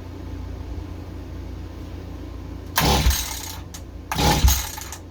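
Two pulls of the recoil starter rope on a Mantis mini tiller's small engine, each a short rasping whirr, the second about a second and a half after the first; the engine does not fire. It will not start despite a rebuilt carburetor and new fuel lines, the tank vent line later found filled with gasoline.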